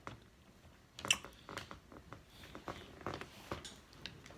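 Close-up chewing and eating: soft wet mouth smacks and clicks, a handful scattered through, the loudest about a second in.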